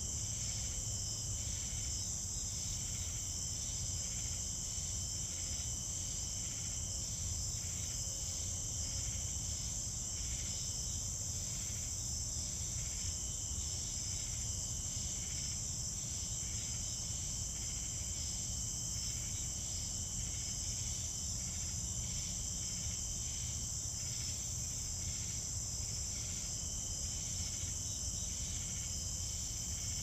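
Night-time chorus of crickets: a steady high-pitched trilling, with a second, lower insect call pulsing rapidly underneath, over a faint low rumble.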